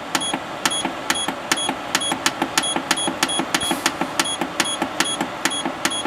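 Waykar PD160B dehumidifier's electronic control panel beeping with short high beeps about every half second as the timer setting is stepped through. Rapid, even clicking runs under the beeps.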